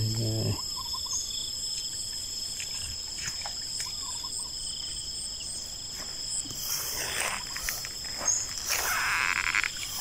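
Steady chorus of field insects in a rice paddy, several high even tones held without a break. Brief rustling rises over it twice in the second half.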